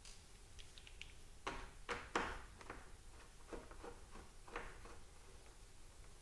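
Small clicks and light knocks of a screwdriver working screws out of a laptop hard-drive caddy, with a few louder knocks about two seconds in.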